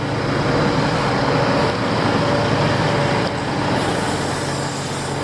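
Heavy diesel engine of a construction machine or truck running steadily, growing louder over the first second and then holding.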